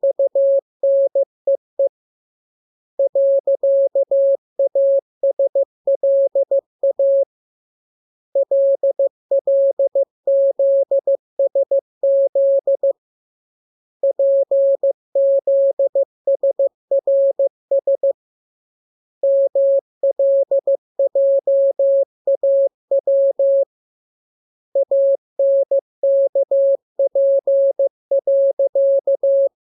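Morse code sent as a single steady mid-pitched tone, keyed on and off in rapid dots and dashes. The characters come in runs of about four seconds, each followed by a pause of about a second.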